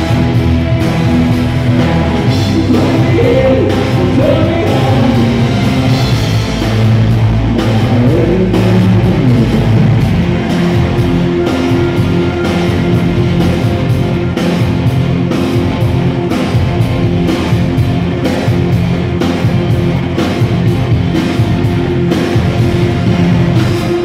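Loud live rock band with drums and synthesizers, a man singing over it for roughly the first ten seconds before the music carries on without vocals.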